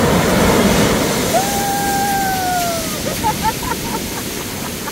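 Surf breaking and washing up over a sandy beach, a steady rushing that is loudest in the first second. About a second and a half in, a woman lets out one long, slightly falling cry, followed by a few quick laughs.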